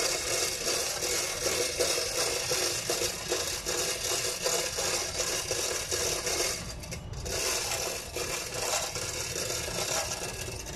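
Steel lifting chains rattling and scraping against a concrete slab while they are rigged to a chain hoist, a continuous irregular clatter that eases briefly about seven seconds in.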